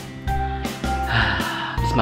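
Background music with a steady beat. About a second in comes a short breath noise from the person eating.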